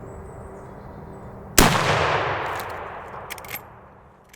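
A single rifle shot about one and a half seconds in, its report echoing and fading over about two seconds, followed by a few short sharp clicks.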